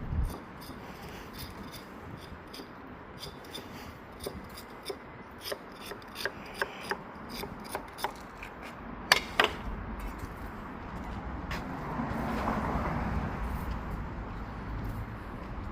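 Bricklaying: a trowel scraping mortar and tapping bricks, with scattered sharp taps, two louder knocks about nine seconds in, and a longer scraping rub a little after twelve seconds.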